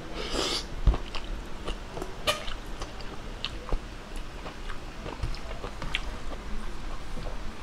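Close-up wet chewing and mouth clicks from a hand-fed mouthful of kangkong (water spinach) adobo and rice. A short slurp as the mouthful goes in near the start is followed by a dull knock about a second in, then steady chewing with scattered small clicks.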